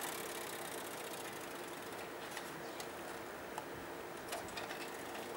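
A steady mechanical hum, with a few light clicks from a bicycle being turned around.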